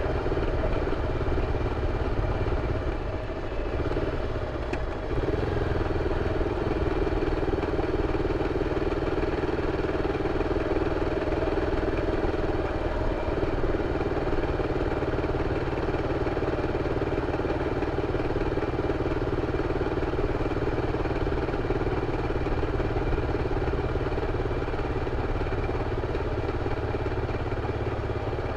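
BMW F 650 CS Scarver's single-cylinder engine running through its original exhaust. The note dips briefly about three to five seconds in, then holds steady.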